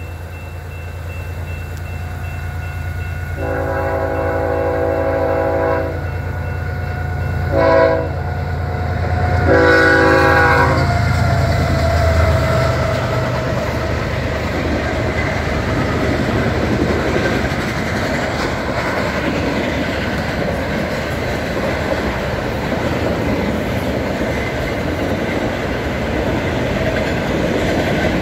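BNSF freight train sounding its locomotive air horn for a grade crossing: a long blast, a short one, then a long one ending about 11 s in, over the deep rumble of the diesel locomotives, which fades as they pass about 12 s in. Empty autorack cars then roll by with a steady rumble and clickety-clack of wheels on the rail.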